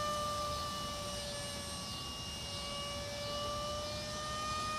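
Electric ducted fan of a small radio-controlled F-86 model jet whining steadily in flight, its pitch dipping slightly midway and rising again near the end.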